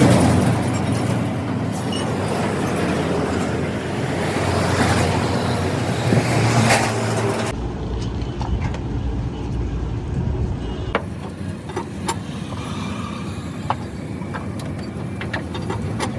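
Steady road traffic noise from passing vehicles, with a few sharp clicks or taps scattered through it and a deeper low rumble for a few seconds midway.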